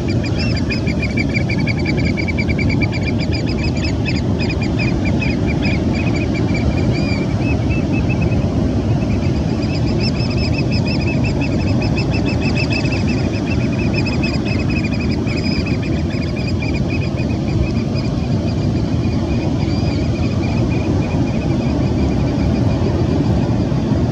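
Steady rushing of fast river water. Over it a bird calls in a long run of rapid high chirps through most of the first two-thirds, breaking off briefly about eight seconds in.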